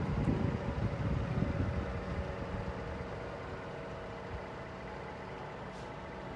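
Scania R124 truck's diesel engine idling steadily, with wind buffeting the microphone for the first couple of seconds.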